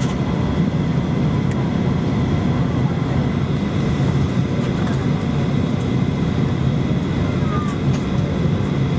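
Cabin noise of a Boeing 737-400 taxiing, heard at a window seat over the wing: the CFM56 engines at taxi power give a steady low rumble under a thin, constant high whine, with a few faint ticks.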